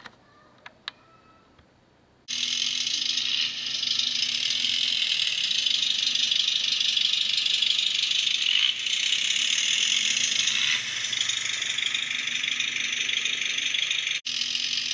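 A few faint clicks, then about two seconds in a model locomotive's ESU LokSound micro sound decoder comes in with the recorded sound of a diesel engine, played through the small speaker of a Bemo HOm RhB Tm 2/2 service tractor model. It is a tinny, rattling engine sound over a steady low hum, and it shifts a few times as the model runs.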